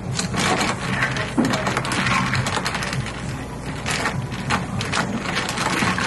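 A bar spoon stirring ice in a tall glass of grapefruit ade just topped with sparkling water: many quick clicks and rattles of ice against the glass over the fizz of the soda.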